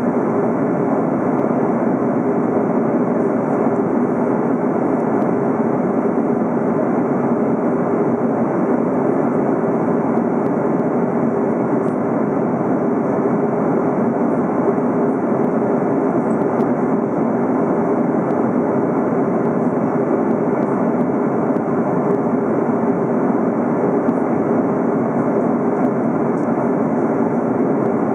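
Steady in-flight cabin drone of an Airbus A330 airliner: engine and airflow noise heard from a passenger seat, an even rush with a steady low hum under it.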